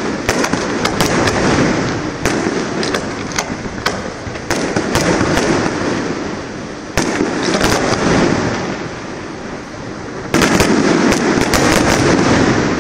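Aerial fireworks shells bursting: a rapid run of sharp bangs, several close together, with crackling between them. Each volley fades slowly, and the loudest volley starts about ten seconds in.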